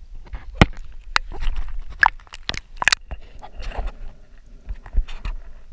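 Irregular sharp clicks and knocks heard underwater, a dozen or so scattered over a few seconds with the loudest in the first three seconds.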